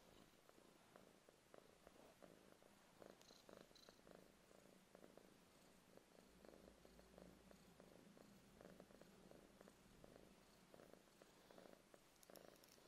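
A domestic cat purring faintly and steadily while its head is stroked, a contented purr.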